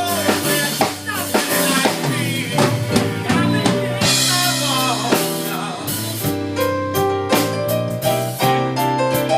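Band music with a drum kit keeping a steady beat under sustained bass and melody notes.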